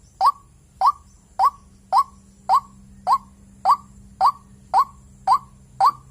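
White-breasted waterhen (dahuk) calling: a short rising 'kook' note repeated in a steady series, a little under twice a second.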